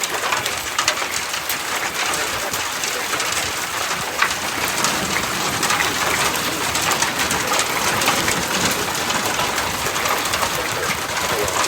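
Heavy rain pelting down on a surface: a dense, steady hiss packed with small sharp drop strikes, with one louder hit about four seconds in.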